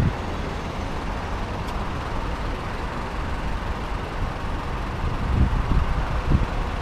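Steady road traffic noise at a city intersection, cars passing, with low wind buffeting on a helmet-mounted microphone in the last couple of seconds.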